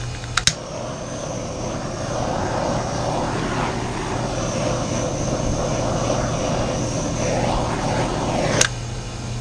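A steady rushing noise from a running appliance. It switches on with a couple of clicks just after the start and cuts off abruptly with a click about eight and a half seconds in.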